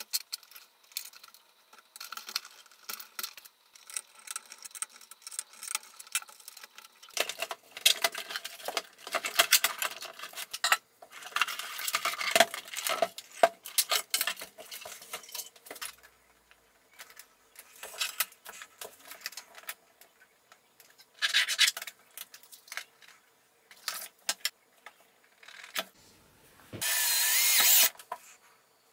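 Wires and cables rubbing and scraping, with small plastic clicks and knocks, as they are handled and pulled through a plastic electrical enclosure. A loud steady noise lasting about a second comes near the end.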